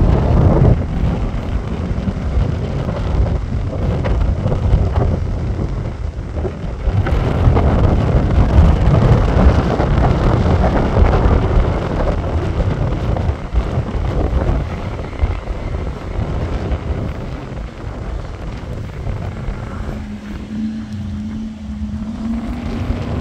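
Engine of a Land Rover Freelander being driven hard across a grass field, with heavy wind buffeting on the microphone. The sound swells and fades in loudness as the car comes and goes.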